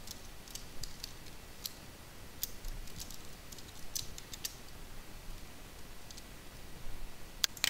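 Computer keyboard keys clicking in scattered, irregular taps as a file name is typed, over a faint low background hum.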